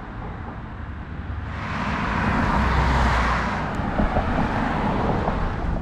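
A car driving past on a road, its tyre and engine noise swelling up over a couple of seconds and fading away again, over a steady low rumble.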